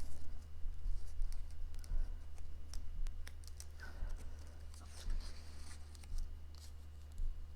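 Cardstock paper pieces being handled and pressed into place by hand: scattered small clicks, taps and light scratchy rustles.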